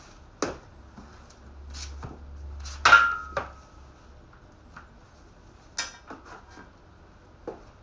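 Scattered clicks and clatter of hand work with tools and small hard parts. The loudest is a sharp metallic clink about three seconds in that rings briefly, and another ringing click comes near six seconds.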